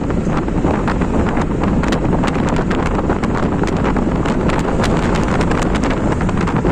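Wind buffeting a phone microphone held at the window of a moving vehicle: a loud, steady rush with constant crackling.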